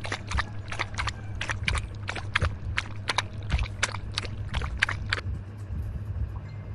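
Rapid pecking taps of a toy rooster figurine's beak against a small wooden water trough, about four sharp clicks a second, stopping about five seconds in, over a steady low hum.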